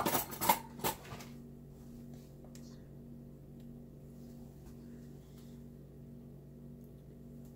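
A utensil clinks and scrapes against a stainless steel mixing bowl of cookie dough for about a second, then only a low steady hum with a few faint ticks remains.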